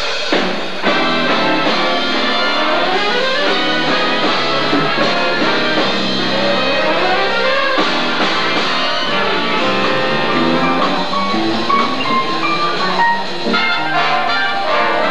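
Big band playing jazz live, with trumpets and trombones over piano, guitar and drum kit; the band comes in right at the start, just after the applause dies away.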